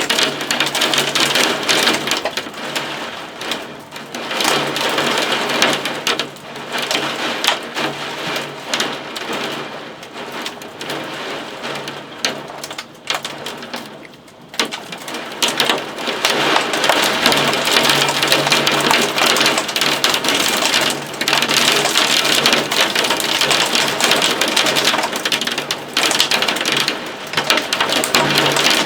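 Heavy thunderstorm rain drumming on surfaces, a dense crackle of many drop impacts. It eases off in the middle and comes down harder again from about halfway.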